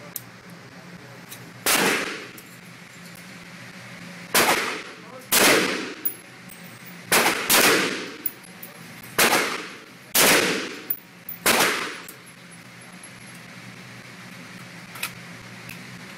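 AR-15 rifle fired in single semi-automatic shots, about eight of them, spaced irregularly a half-second to two seconds apart. Each sharp crack trails off in a short ringing echo, and the shooting stops a few seconds before the end.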